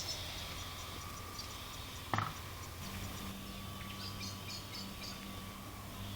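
Electric drives of RC construction models running with a steady hum and a higher whine, a single knock about two seconds in, and a second, lower motor tone joining a second later.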